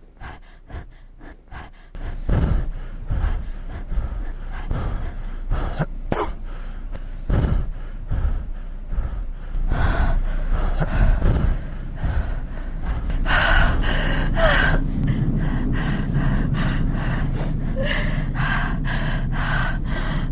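Heavy human breathing: a rapid run of breaths in and out with gasps. It is faint for about the first two seconds, then much louder, and from about ten seconds in the breaths run together more densely.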